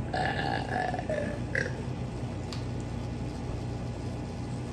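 A person's drawn-out vocal sound for about a second and a half, sliding lower at the end, then a steady low background hum.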